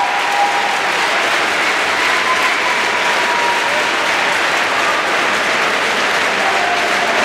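Arena crowd applauding: steady, dense clapping that holds at an even level.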